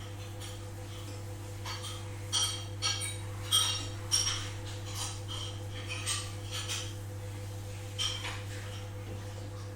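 Kitchen ambience: dishes and cutlery clinking and knocking together, a run of sharp ringing clinks between about two and eight seconds in, loudest near the middle, over a steady low hum.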